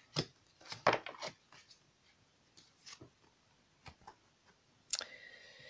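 Oracle cards being handled as a card is drawn and turned up: scattered soft clicks and taps of card stock, with a sharper click about five seconds in.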